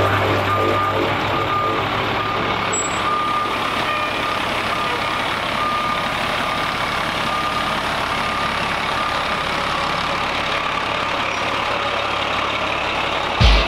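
Pierce aerial ladder fire truck backing up: its diesel engine running steadily under the repeated beeping of its reverse alarm.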